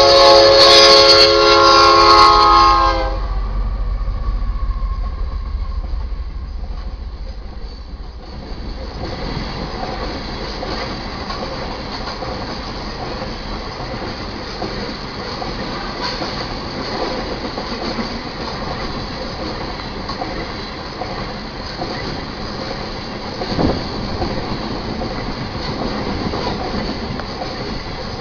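Diesel locomotive's multi-note air horn sounds one loud blast that stops about three seconds in, followed by a deep engine rumble as the locomotives pass. A loaded coal train's hopper cars then roll by with steady wheel-on-rail clatter, and one louder clank comes near the end.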